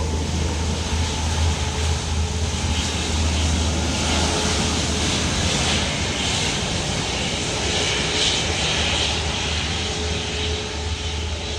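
Jet engines of a Boeing 737 MAX 8 airliner passing, a steady rushing jet noise that grows brighter in the middle and eases off a little near the end.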